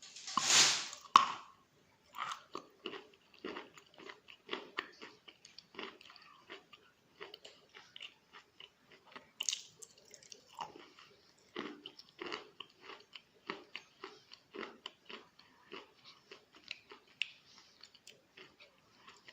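A person biting and chewing wet chalk close up. There is a loud crunching bite just after the start and another around halfway, with steady soft crunching chews in between.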